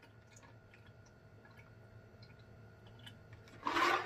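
Faint gulping and swallowing of a drink from a glass mug, heard as soft wet clicks. Near the end comes a short, louder breathy exhale.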